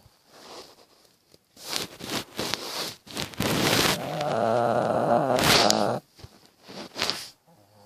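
Shih Tzu snoring: a few noisy breaths, then one long loud snore lasting nearly three seconds, from about three to six seconds in, followed by a couple of shorter breaths.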